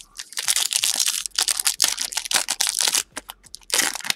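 A foil trading-card pack wrapper crinkling and tearing as it is opened by hand, a dense run of crackly rustling with a short pause about three seconds in and one more burst just before the end.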